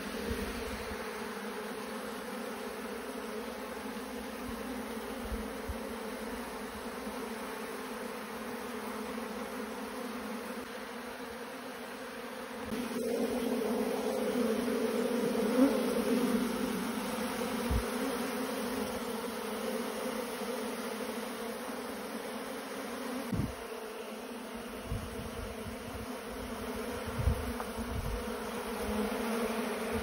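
A honeybee colony buzzing around its exposed comb, a steady low hum that grows louder a little before halfway through.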